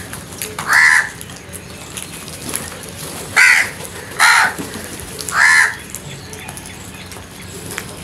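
House crows cawing: four loud, harsh caws, one about a second in and three more in quick succession a few seconds later.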